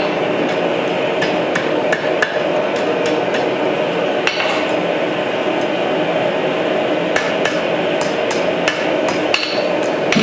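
Blacksmith's hand hammer striking red-hot iron on an anvil, quick blows at about three a second, in two runs with a pause in the middle. A steady rushing roar underlies the blows throughout.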